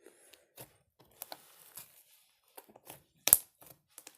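Slime being kneaded and stretched by hand, giving a run of small irregular clicks and sticky pops, with one louder snap about three seconds in.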